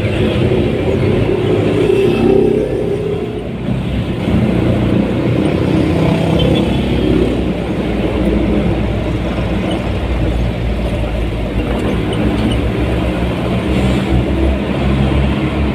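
Motor vehicle engine running with road noise on a drive through traffic, the engine note rising and falling a little as it speeds up and slows.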